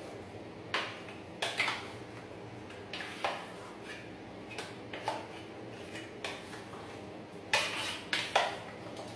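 A utensil clinking and scraping against a cooking pot in a dozen or so irregular knocks as pieces of porcupine pufferfish are stirred into their adobo marinade.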